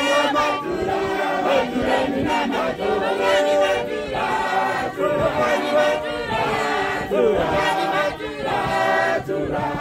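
A congregation of many voices singing a Shona hymn together, with the melody rising and falling.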